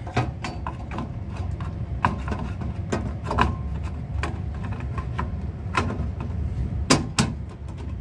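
Scattered clicks and knocks as a circuit card is slid into the card cage of a Simplex 2001 fire alarm panel and pressed home, the sharpest knock about seven seconds in, over a steady low rumble.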